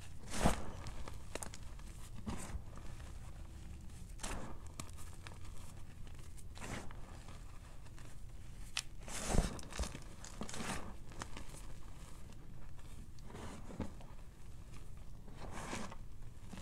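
Crumbled gym chalk and cornstarch powder crunching as fingers squeeze and crush it. The crunches come irregularly, about one every second or two, with louder ones about half a second in and about halfway through.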